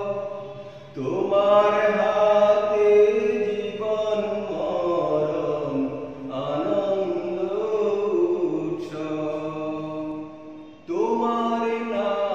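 A man singing a Bengali Islamic devotional song in a chant-like style, drawing out long held notes in phrases with short pauses between them.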